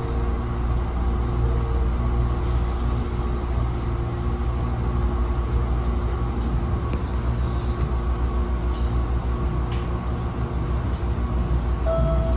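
Electric commuter train rumbling and humming inside the driver's cab as it pulls slowly away from a station platform, with faint ticks partway through and a new steady motor hum near the end.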